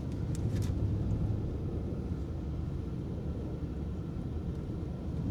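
Snow-plow truck's engine running steadily while plowing, with a couple of short ticks about half a second in.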